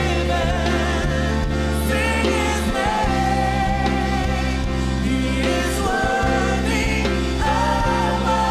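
Church choir singing a gospel worship song over instrumental accompaniment with held low bass notes.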